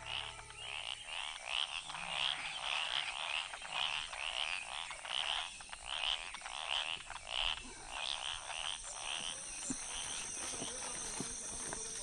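Frog croaking over and over, about two calls a second, over a steady hiss; the calls die away about nine seconds in.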